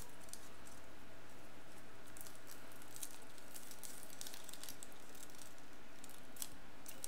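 Clear acrylic chassis plates being handled and shifted against each other: light clicks and scrapes scattered over a steady hiss.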